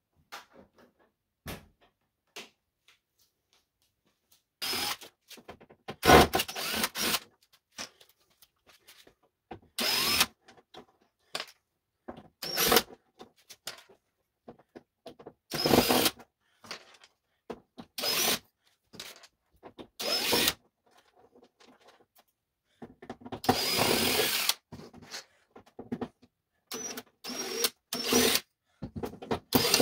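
A cordless drill-driver runs in about a dozen short bursts of a second or so, each with a steady motor whine, as it backs screws out of a TV's back cover.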